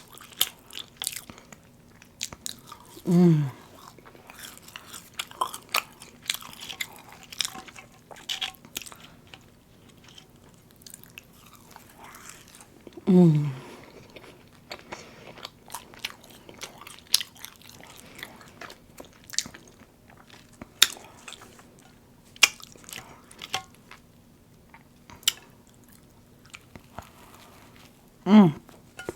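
Close-miked chewing and biting of a fast-food sandwich, with many small wet clicks and crunches. Three short vocal sounds falling in pitch break in, about 3, 13 and 28 seconds in.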